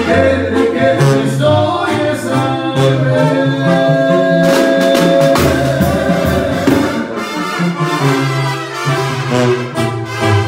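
A banda sinaloense brass band playing a song live at rehearsal: a tuba bass line under trumpets, trombones and clarinets, with a drum kit and a lead singer.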